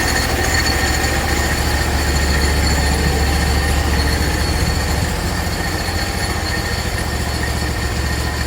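Hud-son HFE30 portable bandsaw mill sawing a log: its engine running steadily under load while the band blade whines through the wood on the first (cap) cut.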